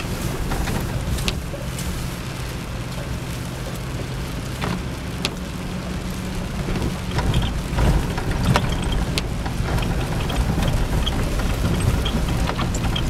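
Jeep Cherokee XJ running at low speed over a gravel trail, heard from inside the cab as a steady low rumble, with rain on the body and windshield and scattered sharp ticks and knocks.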